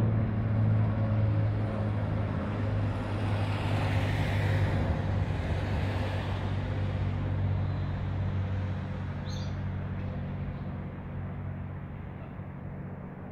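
Boeing 777-300ER's twin GE90-115B turbofans on climb-out, heard from the ground: a steady low rumble with a rushing hiss that swells about four seconds in, then slowly fades as the jet moves away.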